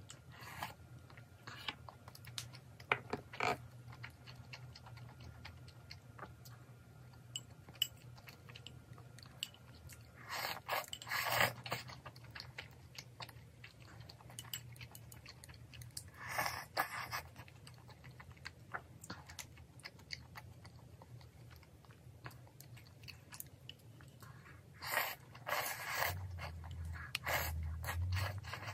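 Close-miked eating sounds: chewing, with several short slurps as spicy mala jjamppong udon broth is sipped from a small bowl, and a few light clicks.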